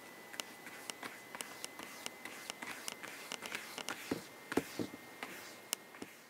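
Irregular sharp clicks and soft scratchy rubs, several a second, as a cat's fur and face brush and bump against a MacBook close to its built-in microphone, over a faint steady high whine.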